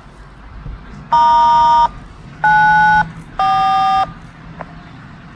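Three short two-tone beeps from a scanner radio's speaker, each a different pair of steady pitches, like touch-tone digits. This is the tone code sent on the siren's radio frequency to set off the test.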